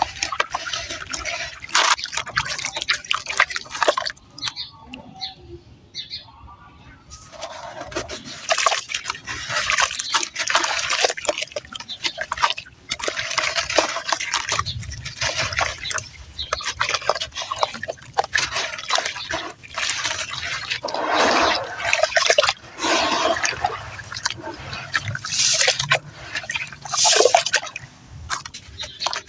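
Close-miked crunching and gritty crackling of red sand, a dense run of small sharp cracks that thins out for a couple of seconds about five seconds in.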